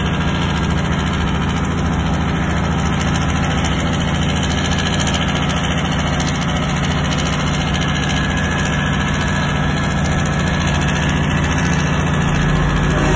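Heavy truck's diesel engine running steadily, heard from inside the cab as the truck rolls downhill; a low, even drone that grows slightly louder near the end.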